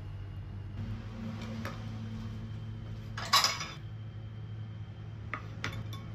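A knife cutting through a toasted sandwich on a wooden chopping board, with one short loud crunch of the toast a little past halfway through, then two light clinks as a sandwich half goes onto a ceramic bowl. A steady low hum runs underneath.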